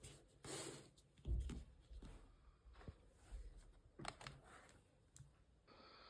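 Faint handling sounds: scattered light clicks and taps with soft rustling. A faint steady hum begins near the end.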